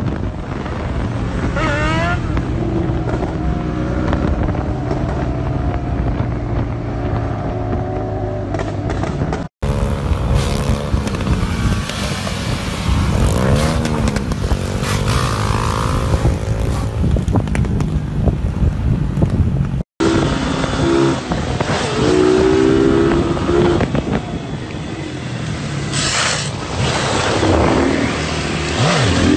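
Motorcycle engines running and revving in three short clips cut together, with two abrupt breaks about a third and two thirds of the way through. The engine pitch rises and falls repeatedly as the riders open and close the throttle.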